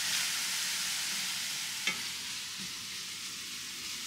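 Chopped onions sizzling in oil in a stainless steel skillet while a spatula stirs them, an early stage of sautéing, with one click about two seconds in.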